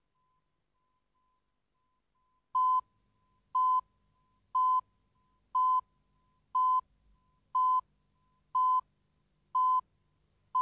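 Countdown leader beeps: a short, steady, single-pitched beep once a second, nine in all, starting about two and a half seconds in and keeping time with the numbers counting down.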